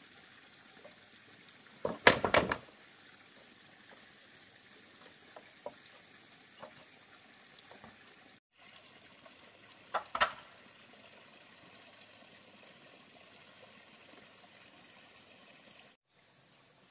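Bamboo poles being struck: a quick cluster of sharp hollow knocks about two seconds in, and a double knock about ten seconds in, over a steady high hiss.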